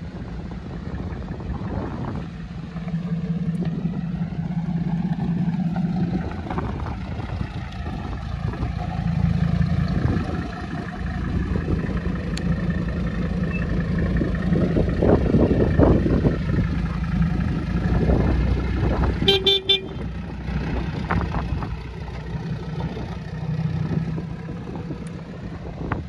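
Mercedes W123 300D diesel engine running as the car drives slowly around and pulls away, the engine note rising and falling. A short car horn toot sounds about two-thirds of the way through.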